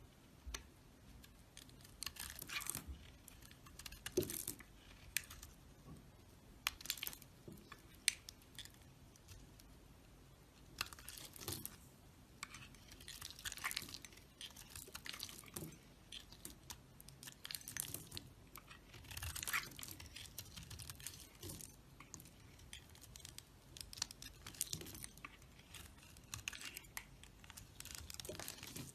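Knife cutting and scraping into dry bar soap in many short strokes, with a quieter pause about nine seconds in.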